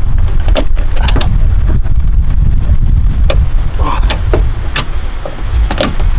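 Ratchet strap being cranked tight to pull out crash damage on a car body, its ratchet clicking in irregular strokes. A steady low rumble of wind on the microphone runs underneath.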